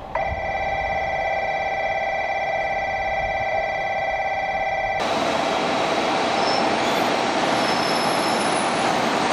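A train at a station: a steady whine of several held tones for about five seconds, which changes suddenly to the steady rushing noise of a train running past.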